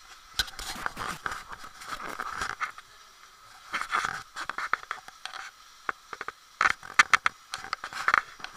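Irregular scraping and rustling broken by sharp clicks, bunched together about four seconds in and again in a tight run of louder clicks near the end.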